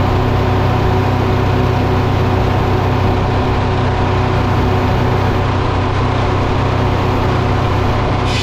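Sawmill machinery and its engine running steadily at constant speed. Just before the end the sound changes abruptly, and a new higher note comes in.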